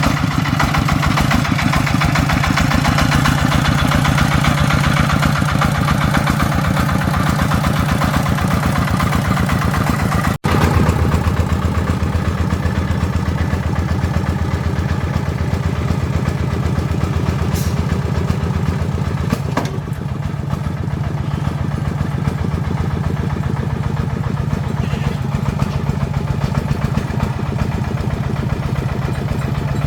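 Agricultural logging truck's engine running steadily with a dense, even chugging. It breaks off for a split second about ten seconds in, then carries on at a slightly lower pitch.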